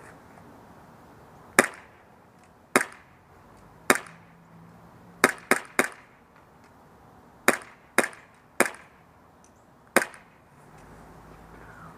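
Tokyo Marui Glock 17 gas blowback airsoft pistol, short-stroked and running on propane, firing ten shots. Single shots come about a second apart, with a quick string of three about five seconds in, then four more.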